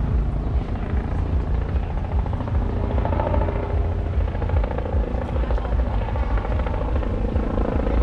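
City street ambience: a steady, rumbling low noise with indistinct voices in the background.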